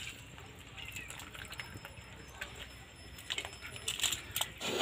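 A metal ladle clinking and scraping faintly against a metal cooking pot while scooping chicken gravy, with a few sharper clinks near the end.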